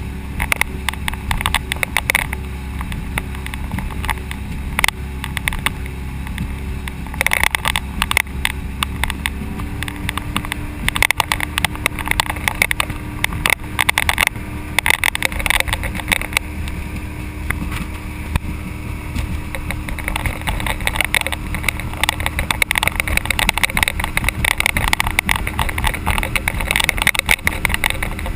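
A boat underway: a steady low engine drone whose pitch steps up slightly about ten seconds in, under gusty wind buffeting and crackling on the microphone.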